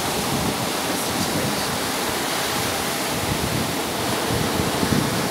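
Lake waves breaking and washing up over a sandy beach: a steady rushing noise. The lake is at flood level, with the water reaching into the beach bar area.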